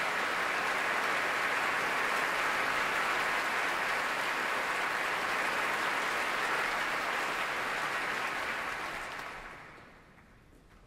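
Large concert-hall audience applauding, a steady dense clapping that dies away over about a second and a half near the end into a hush.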